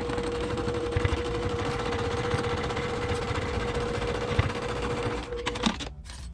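Brother PQ1500SL sewing machine running steadily at speed, stitching a seam. It stops about five and a half seconds in, with a click.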